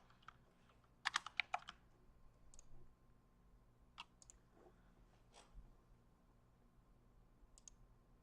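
Computer keyboard typing: a quick run of keystrokes about a second in, then a few isolated clicks, all faint.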